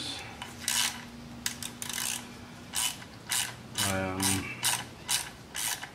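Small hand ratchet clicking in short back-and-forth strokes as a bolt is turned out of a motorcycle engine side cover, about two to three clicks a second at an uneven pace.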